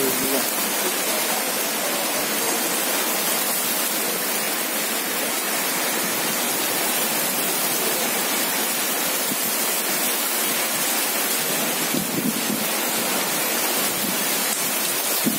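Rain falling steadily: a dense, even hiss.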